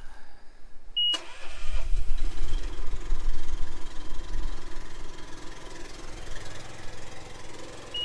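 A short high beep, then the lift's engine starts under remote control about a second in and settles into a steady idle. Another steady beep sounds near the end.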